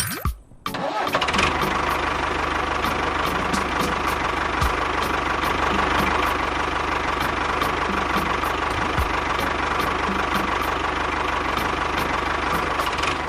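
Small engine of a DIY mini tractor running steadily, with a light regular ticking about twice a second. It comes in about a second in, after a brief quiet gap.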